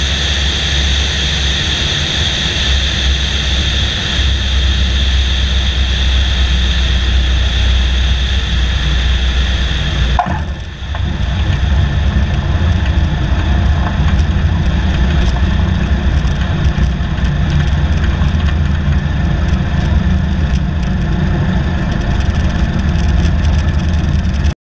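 Luscombe 8A's Continental A-65 four-cylinder engine and propeller running at low power as the plane rolls along the ground. About ten seconds in, the sound dips briefly and the high hiss drops away, and the engine runs on steadily.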